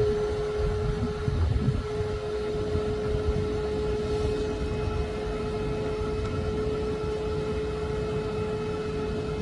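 Henry vacuum cleaner running steadily: a constant motor whine over the rush of air through it.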